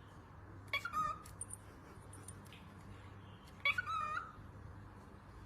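Cockatiel calling twice, short pitched calls about three seconds apart, with faint high chirps between them.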